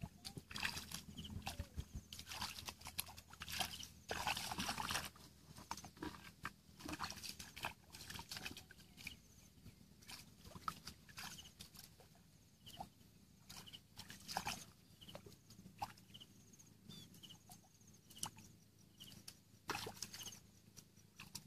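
Hands splashing and sloshing in shallow muddy water, with short wet splats and squelches of mud as they feel along the bottom for fish; the splashing is busiest in the first few seconds, then thins to scattered small splashes.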